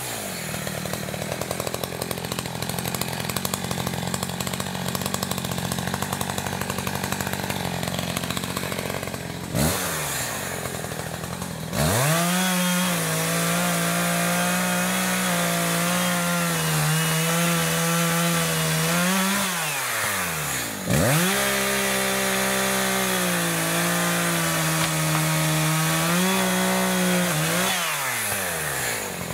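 New Echo CS-590 Timber Wolf chainsaw, a two-stroke, run at high revs through cuts in fallen timber. The revs drop and climb back about ten seconds in and again about twenty seconds in. It is held steady between these dips and eases off near the end.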